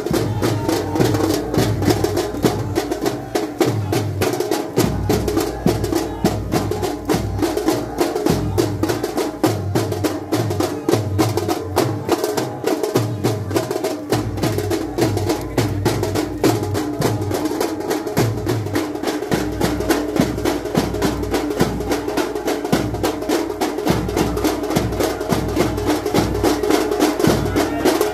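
Fast percussion music from Muharram procession drums: a rapid, unbroken rattle of sharp strokes over regular deep drum beats.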